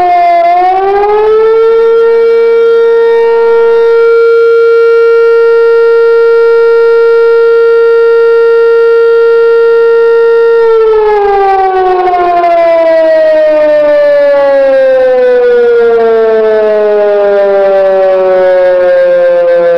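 Loud outdoor tornado warning siren sounding as a tornado warning. In the first second or so its pitch dips and climbs back up, then it holds one steady tone for about nine seconds. After that it winds down, the pitch falling slowly.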